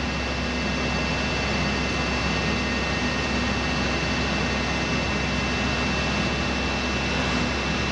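A large lathe turning a big steel shaft: a steady machine hiss and hum with a thin, high whine on top.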